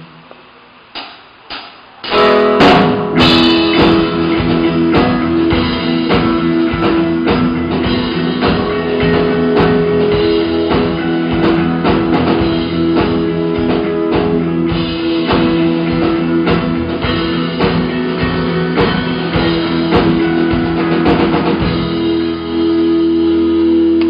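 Live band playing an instrumental passage on acoustic guitar and drum kit. After a quiet start with two short clicks, the band comes in loudly about two seconds in with fast drumming under strummed chords; near the end the drums drop out and the chords ring on.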